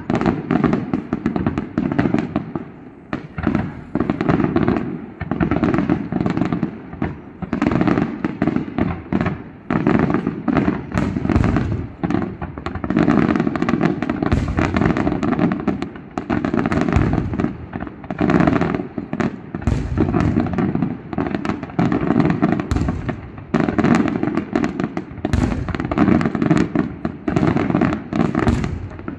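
Aerial fireworks display: a rapid barrage of shell bursts, many bangs overlapping with crackle, broken by a few brief lulls.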